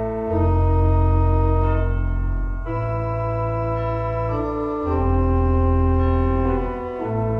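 Organ music: slow, held chords over deep bass notes, the chord changing every two seconds or so.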